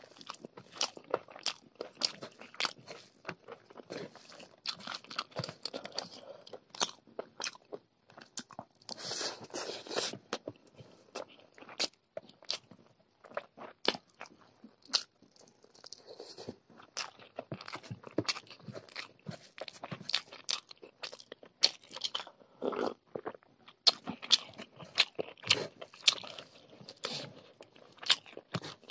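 Close-miked chewing of chicken curry and rice eaten by hand, with many sharp, irregular clicks from the mouth.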